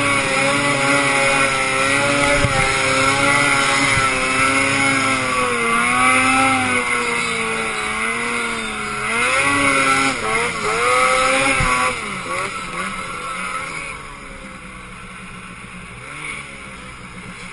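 Two-stroke engine of a Ski-Doo Summit XP 174 snowmobile under throttle in deep snow, its pitch rising and falling repeatedly as the rider works the throttle. About twelve seconds in the throttle comes off and the engine note falls away, much quieter near the end.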